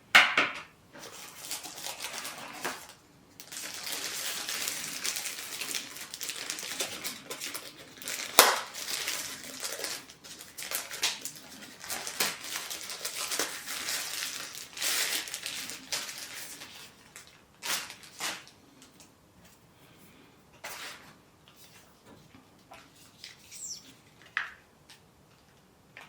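Packaging rustling, with hard plastic parts clicking and knocking, as a DJI Osmo Mobile 6 phone gimbal is unpacked and handled. The rustling stops a little past halfway, leaving a few scattered clicks.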